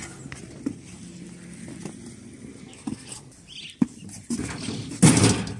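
Blue plastic crate knocking and rustling as it is carried and lifted, with a few sharp clicks. About five seconds in it is set down into the tricycle's metal cargo bed with a loud, brief scrape.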